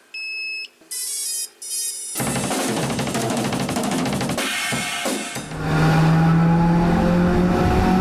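Drum kit playing with snare, bass drum and cymbals, after a few short electronic tones in the first two seconds; it gets louder about five and a half seconds in, with some low held notes under it.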